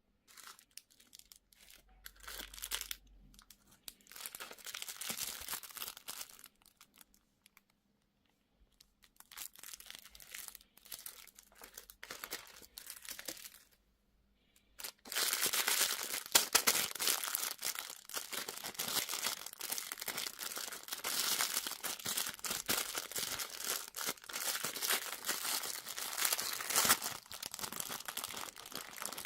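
Candy wrapper crinkling and tearing as sweets and surprise toys are unwrapped by hand. It comes in short spells with brief pauses, then runs on without a break and louder from about halfway through.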